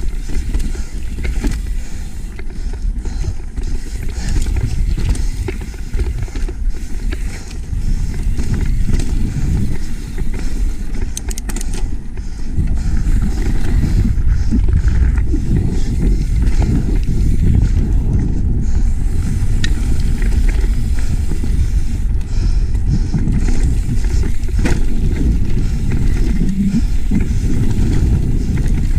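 Mountain bike riding down a rough dirt trail: constant wind rush on the microphone and tyre rumble, with scattered sharp knocks and rattles. The rumble grows louder and steadier a little under halfway in.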